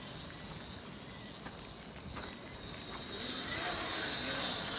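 Electric motorbike's motor giving a thin, steady high whine over tyre and road noise, growing louder about three seconds in as the bike comes close in a wheelie.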